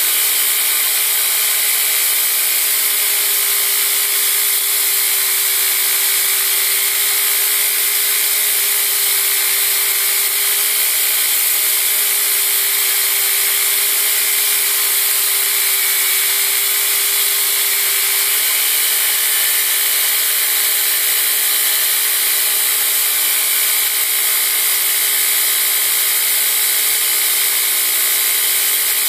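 Belt grinder running steadily with a steel push-dagger blade held against the moving belt to grind its bevel, giving an even, high hiss of abrasive on steel.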